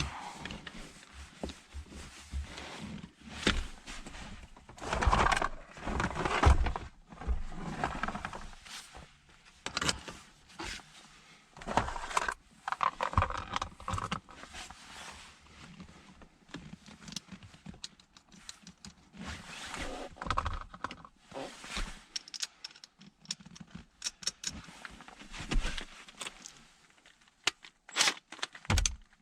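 Sped-up reassembly work on a truck's transmission shifter: irregular metallic clanks, clicks and rattles of hand tools and parts.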